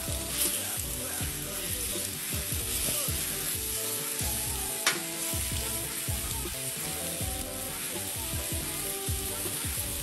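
Raw chicken thigh pieces sizzling steadily on a hot Blackstone flat-top griddle set to medium-high, just after going onto the steel. A single sharp tap comes about five seconds in.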